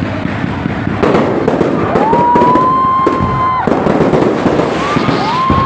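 Fireworks going off: dense crackling and bangs, with a whistle that rises and holds its pitch for over a second about two seconds in before cutting off, and another rising whistle near the end.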